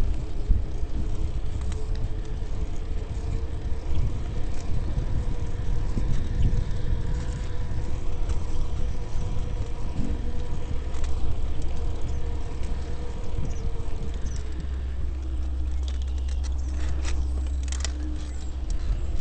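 Ride noise from a camera on a moving bicycle: wind rumbling on the microphone and tyres rolling on pavement, with small rattles and clicks and a faint steady hum through the middle.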